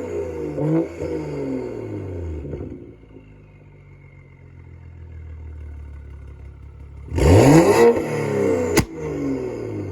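Straight-piped BMW M235i's turbocharged N55 inline-six revving in neutral: a blip early on that falls back to idle, then a hard rev about seven seconds in followed by a sharp bang from the exhaust as the revs drop, from a burble tune.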